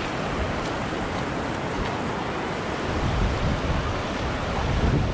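Steady rush of wind blowing hard across the microphone, heaviest in the low rumble.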